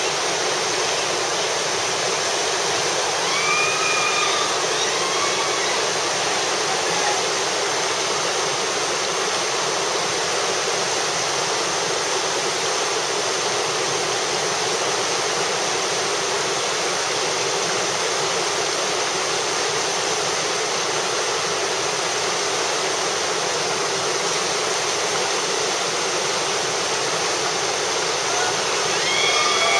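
Rushing whitewater of a river rapid, a steady, loud roar of churning water.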